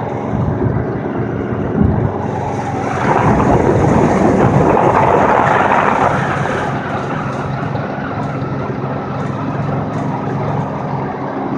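A vehicle driving along a highway: a steady engine and tyre drone with a fixed low hum. A louder rushing swell comes in about two and a half seconds in and fades away by about seven seconds.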